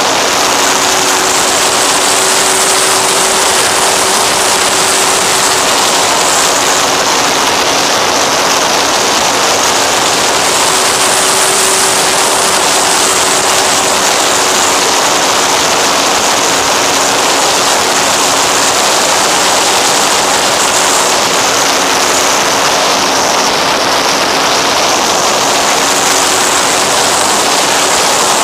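Steady wind rush over the onboard camera of an FX-79 flying wing in cruise, with the even hum of its motor and propeller held at two steady tones underneath.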